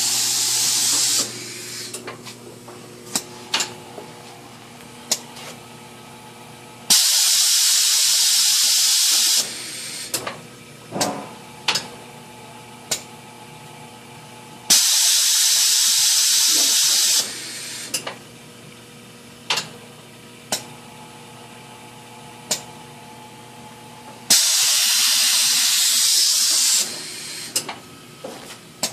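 Nutek end-of-line PCB unloader cycling: loud bursts of hissing compressed air, each about two and a half seconds long, come roughly every eight seconds. Short sharp clicks and knocks from the mechanism fall between them.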